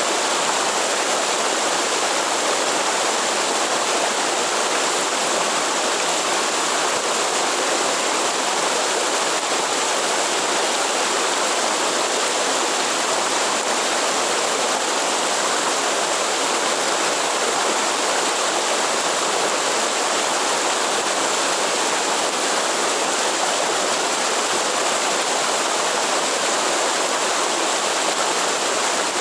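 Waterfall in Atlantic Forest, with water pouring down in a steady, even rush that does not change.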